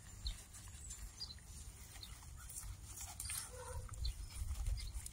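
Quiet outdoor background: a steady low rumble with faint rustling and a few short, faint squeaks, one a little louder about three and a half seconds in.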